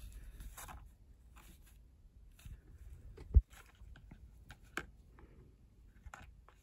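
Faint rustling and light clicks of a small cardboard box and a thin earphone cable being handled, with one dull thump about three and a half seconds in.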